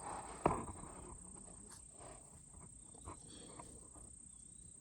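Quiet outdoor background: a steady, faint high-pitched tone with a few soft knocks and ticks, the loudest knock about half a second in.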